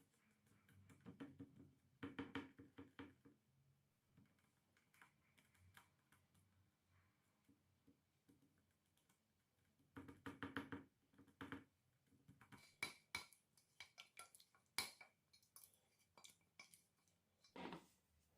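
Faint clicking and tapping of kitchen utensils and dishes being handled, in a few short clusters of quick clicks.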